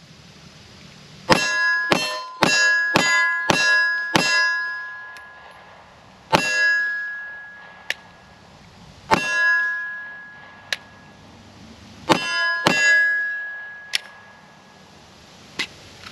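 Glock 43X 9mm pistol shots with steel targets clanging and ringing on each hit. A quick string of six hits about half a second apart is followed by single hits a few seconds apart and a pair near the end, with a few fainter sharp cracks and no ring in between. This is a function test of the pistol and its factory magazines after mud was cleaned out of them.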